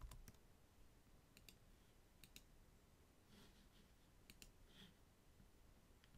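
Near silence with a few faint computer mouse and keyboard clicks, several coming as quick pairs.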